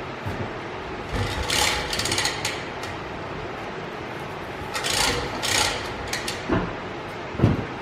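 Hand woodworking on the boat: two groups of short rasping strokes on wood, then a few clicks and a single knock near the end.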